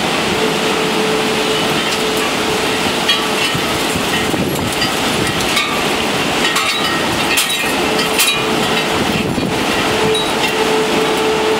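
Steady rushing noise of storm wind through trees, with a few scattered light clinks in the middle.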